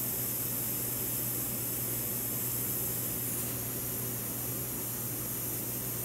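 Steady hiss with a low, steady hum underneath: constant background room noise, with no distinct events.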